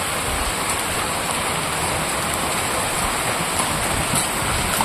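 Heavy rain falling steadily on a wet paved street, an even hiss.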